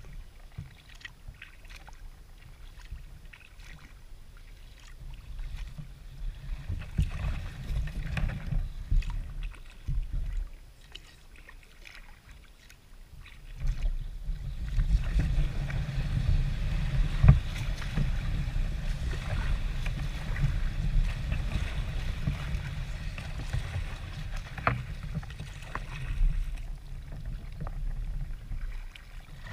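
Kayak being paddled on calm creek water: paddle strokes, splashes and water lapping at the hull, over a low rumble. It grows louder and busier about halfway through.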